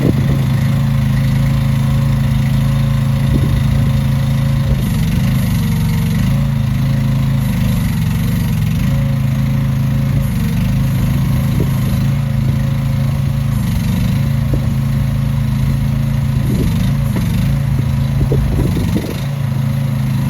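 CFG Industries H15R mini excavator's small engine running steadily at idle, with a few brief wavers in its note and a short drop in level near the end.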